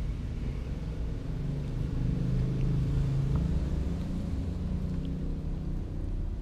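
Low, steady rumble of a running motor, with a humming tone that grows louder for a few seconds in the middle, and a few faint clicks.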